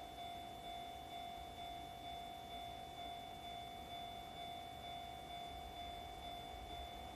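Railway level-crossing warning alarm ringing: a faint, repeated ding on one steady pitch.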